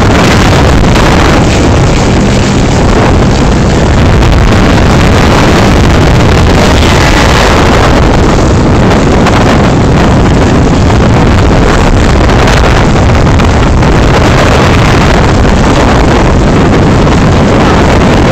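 Helicopter hovering close overhead: loud, steady rotor and engine noise, with wind buffeting the microphone.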